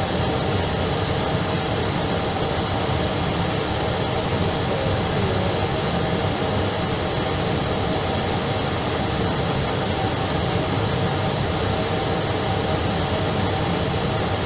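Steady rushing cabin noise of an Airbus airliner on approach, a constant mix of engine and air-conditioning noise that does not change.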